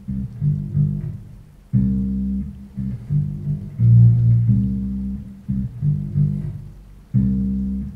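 Electric bass guitar playing a repeating riff of low plucked notes, with little treble; the phrase starts over about every five and a half seconds.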